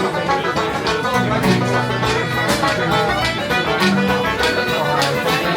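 Live music, a folk-style tune with a steady strummed beat, played in a pub.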